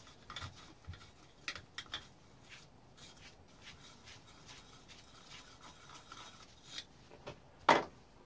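Gloved hands handling and working on a Husqvarna 357 chainsaw's casing: scattered small clicks, taps and rubbing, with one louder knock near the end.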